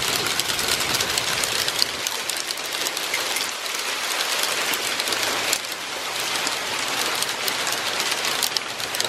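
Small hailstones pelting down in a loud, dense, steady patter of fine ticks.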